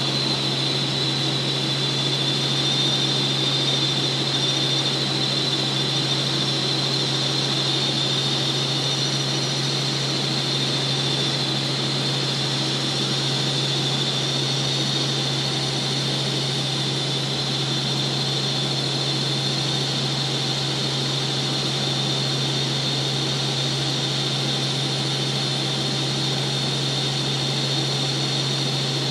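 Helicopter in cruise flight: a steady drone from the rotor and turbine with a constant high whine, unchanging throughout.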